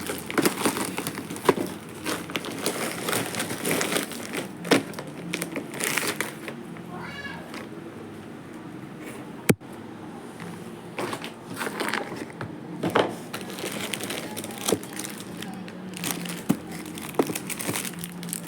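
Plastic packaging crinkling and rustling in irregular bursts as a saree is unboxed, with a sharp click about halfway through. A short, high wavering call is heard about seven seconds in.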